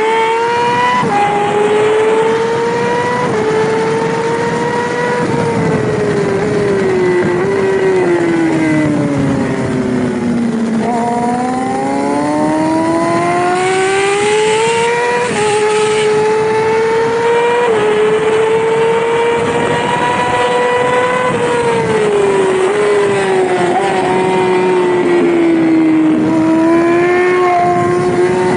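Yamaha R6 600cc inline-four racing motorcycle engine at high revs, accelerating through the gears: the pitch climbs and steps down at each upshift. Twice the revs sink steadily for several seconds, about a third of the way in and again after the middle, as the bike slows for a corner, then climb again.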